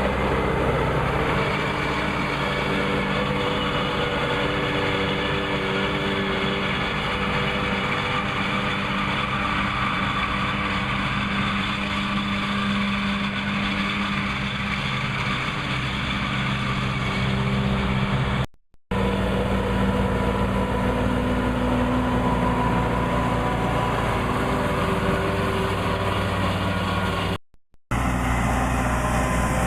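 Massey Ferguson 2600-series tractor's diesel engine running steadily. The sound cuts out briefly twice, about 18 and 27 seconds in.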